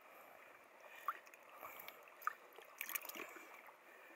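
Faint sloshing of water as a hand stirs through a cooler full of live fish, with a few small splashes.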